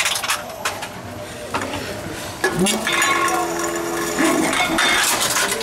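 Containers clinking and knocking against a Tomra Tx2 reverse vending machine as they are fed in. About halfway through there is a short rising hum that holds steady for a second or so as the machine's mechanism runs.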